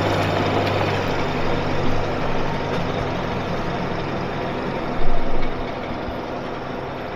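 Truck engine running steadily and slowly fading, with a brief loud noise about five seconds in.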